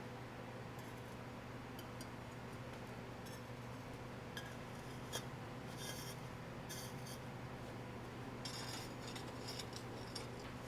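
Faint workshop handling sounds: scattered light clicks and short scrapes, busiest in the middle and again near the end, over a steady low hum.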